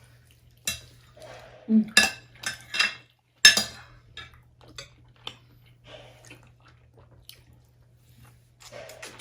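Spoons clinking and scraping against bowls during eating: a run of sharp clinks, the loudest about three and a half seconds in, then fainter taps.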